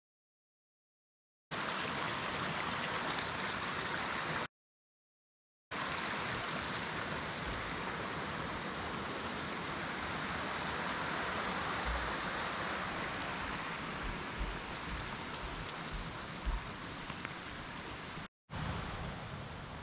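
Steady rush of flowing water, broken by three short drops to silence, with a few soft low thumps in the second half.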